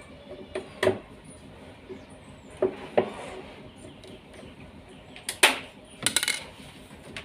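Hand tools and metal parts clinking and knocking during repair work on a washing machine: a few sharp separate strikes in loose pairs, the loudest near the end.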